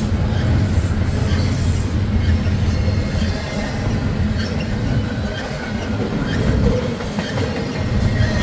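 Long freight train rolling past, a steady rumble of railcars and wheels on the rails.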